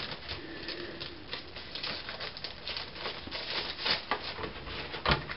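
A makeup palette and its box being handled: a run of irregular rustles and light clicks, with a sharper knock about five seconds in.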